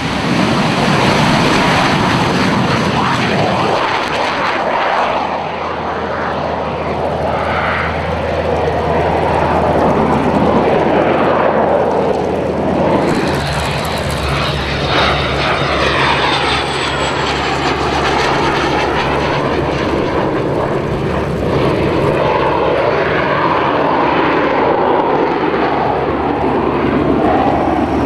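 Twin General Electric J85 turbojets of a Cessna A-37 Dragonfly running at high power as it takes off and climbs away. The jet noise holds loud and steady, with a low rumble in the first few seconds. Around the middle its pitch sweeps as the aircraft passes overhead.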